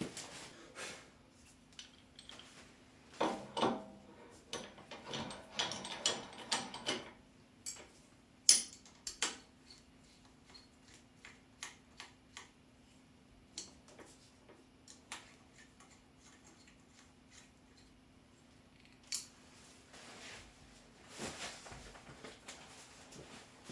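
Scattered metal clicks and clinks from a scroll chuck being fitted on a wood lathe's headstock spindle and tightened with its chuck key. The clicks come in a busy cluster early on, with one sharp knock partway through, then sparse ticks. A faint steady hum runs underneath.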